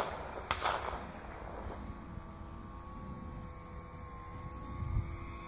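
Electric motor and propeller of a 1/8-scale Blériot XI radio-controlled model plane whining steadily in flight, the pitch wavering slightly, over a low rumble of wind on the microphone.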